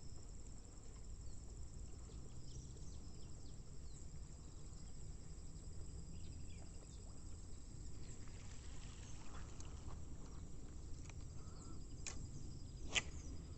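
Outdoor ambience of steady high-pitched insect chirring over a low rumble, with scattered small clicks and one sharper click near the end.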